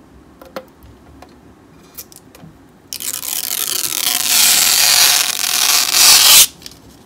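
Clear protective plastic film being peeled off the glossy casing of a D-Link DIR-850L router. A few light handling clicks, then about three seconds in a loud peel lasting about three and a half seconds that stops suddenly.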